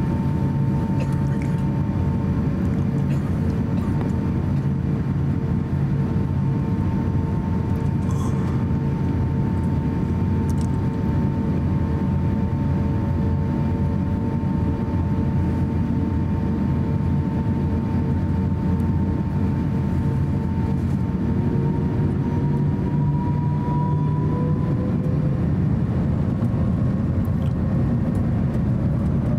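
Cabin noise inside an Airbus A350-900 on the ground: its Rolls-Royce Trent XWB engines run with a steady rumble and a whine. In the last several seconds the whine starts to rise in pitch as engine thrust increases.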